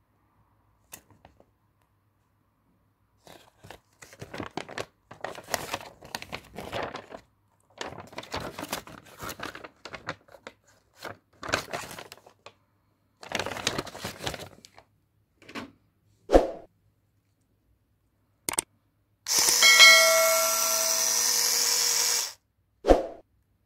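Paper instruction leaflet rustling and crinkling as it is unfolded and handled, then a few clicks and knocks. Near the end the Dearling 3-in-1 cordless epilator's motor runs for about three seconds, a steady whine, and stops.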